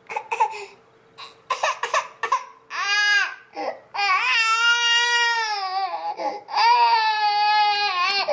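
Baby crying: a few clicks and short fussy sounds, then a short cry and two long, loud wails at a steady pitch, about four and six and a half seconds in. Tired fussing from a baby who probably didn't sleep long enough.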